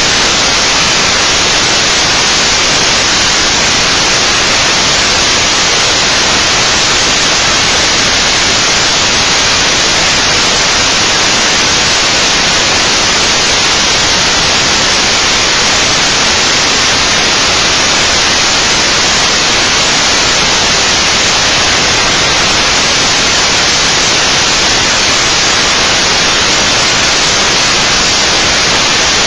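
Loud, steady static hiss from a webcam microphone, even throughout.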